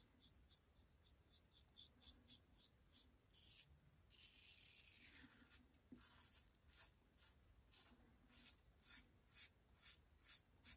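Faint scraping of a double-edge safety razor with a Gillette Nacet blade cutting lathered stubble in short strokes, about two or three a second, with one longer stroke about four seconds in.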